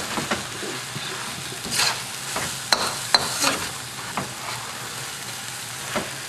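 Noodles and eel sizzling in a wok while a metal spatula stirs and scrapes through them, with irregular clicks of the spatula against the pan, the sharpest about three seconds in.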